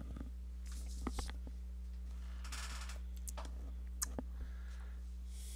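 A steady low hum with a few faint, short clicks, two about a second in and two about four seconds in, and a soft brief rustle near the middle.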